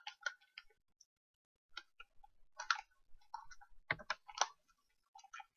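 Faint, thin sound leaking from Skullcandy Hesh headphones playing music at half volume, heard only as irregular ticks and clicks with no bass.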